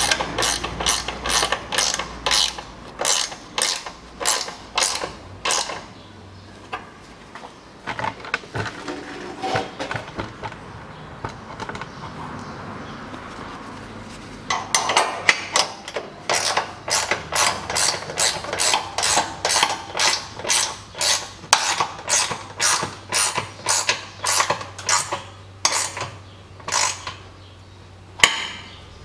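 Ratcheting wrench clicking in quick, regular strokes of a few clicks a second as it runs down the bolts of a steel engine skid plate. The clicking thins out for several seconds midway, then picks up again.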